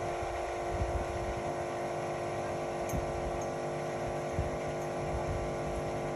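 Indesit Innex XWA 81252 front-loading washing machine running, its motor giving a steady hum with a whine of several tones, which stops abruptly near the end.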